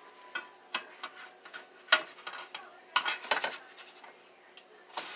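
Spatulas clinking and scraping against frying pans as pancakes are loosened for flipping: a run of sharp clicks, the loudest about two seconds in and a quick flurry around three seconds.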